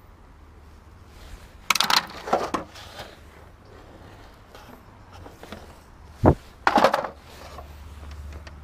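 Handling clatter of a cassette storage rack with wooden sides and plastic cassette drawers: sharp knocks and rattles about two seconds in, a dull thump past six seconds, then another short rattle.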